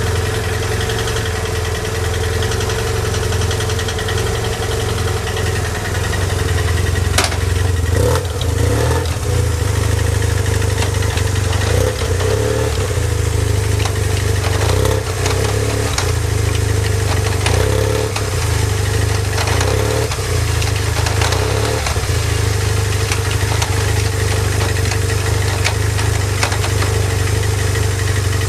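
BMW F800ST's parallel-twin engine running steadily at idle, with a few short swells in the middle and two sharp clicks about seven and eight seconds in. The seller lists the idle as stable and free of abnormal noises.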